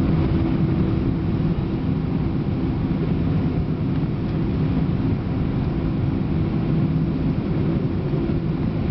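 Airbus A319 jet engines and airframe heard from inside the cabin as the airliner rolls onto and along the runway: a steady rumble with a low hum that neither rises nor falls.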